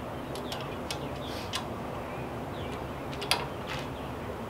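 Scattered light metal clicks of an Allen wrench working the bolts of a trailer trimmer-rack mount as it is tightened down, with a sharper click a little after three seconds in and two more at the end.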